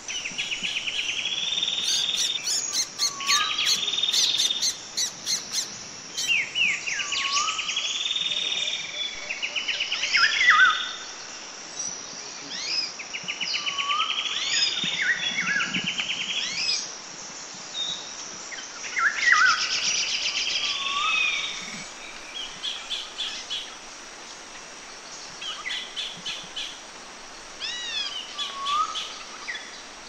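Songbirds singing: one bird repeats a loud trilled phrase every few seconds, each ending in a falling note. The phrases give way to quieter, shorter chirps near the end, all over a steady background hiss.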